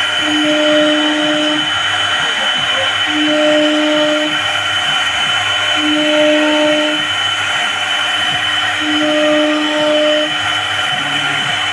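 CNC router spindle running and cutting HDHMR board: a steady high whine over a dense machining noise, with a lower hum that comes and goes every two to three seconds as the cutter moves.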